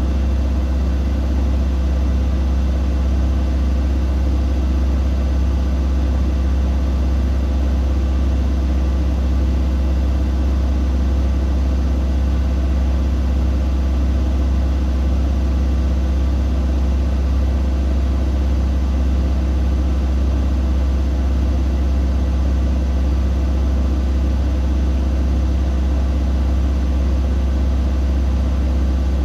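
Siemens Siwamat iQ 716 front-loading washing machine running with a steady, loud low hum that does not change.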